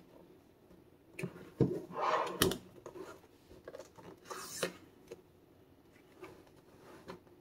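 Hands handling a Samsung Galaxy Z Fold 6 cardboard retail box: rubbing and scraping on the card, with two sharp knocks between one and three seconds in and a brief scrape about four and a half seconds in.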